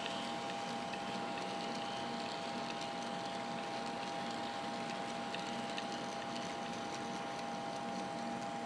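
Small electric motor of a Graham Farish N gauge Class 08 model shunter whining steadily while hauling a long, heavily loaded rake of hoppers, with occasional light ticks from the wheels on the track.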